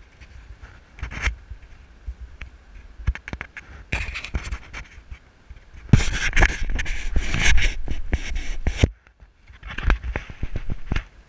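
Fingers scraping and rubbing on the GoPro's housing, with many sharp clicks and knocks, as the camera is handled and re-angled on its mount. It is loudest for about three seconds midway, then drops off briefly.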